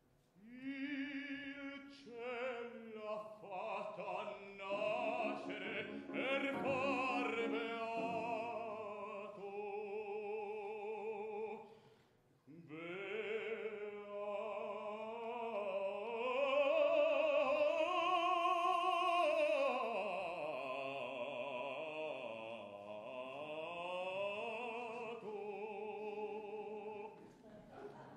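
Operatic baritone singing a lyrical Italian bel canto line in long phrases with wide vibrato, accompanied by piano. The voice breaks off briefly about twelve seconds in, then returns louder in sustained phrases.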